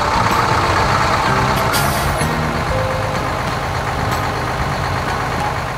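Cartoon sound effect of dump trucks and a backhoe loader driving: a dense, steady engine-running noise, with a short hiss about two seconds in.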